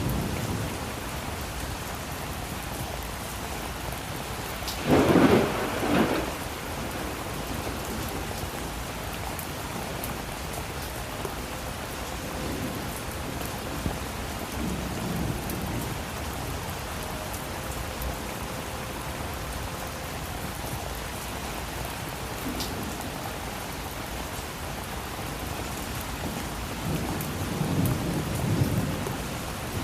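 Steady rain falling, with thunder: a loud, sharp thunderclap about five seconds in, and lower, softer rumbles of thunder near the middle and again near the end.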